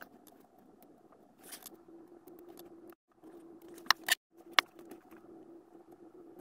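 Faint steady hum, twice cut off by short gaps of silence, with three sharp clicks about four seconds in.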